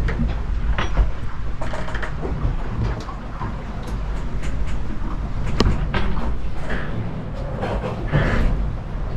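Sailboat cabin underway in a lumpy sea: a steady low rumble of the hull moving through the water, with scattered knocks and rattles of loose gear and fittings as the boat rolls.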